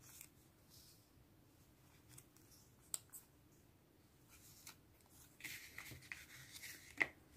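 Faint rustling and light clicks of a stack of die-cut paper stickers being shuffled in the hands. From about five seconds in there is a longer stretch of paper rustling as the stack is laid down and pushed across a kraft paper pouch, with a sharp tick near the end.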